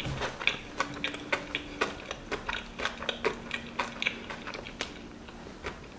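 Chewing a bite of a rolled, sugar-dusted pancake: irregular mouth clicks, a few a second, picked up close to the microphone.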